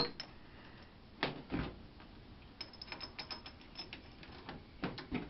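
Scattered metal clicks and clinks from parts and tools being handled at a lathe that is not running. A sharp click comes right at the start, then two more a little over a second in, a quick run of light ticks around the middle, and a few more near the end.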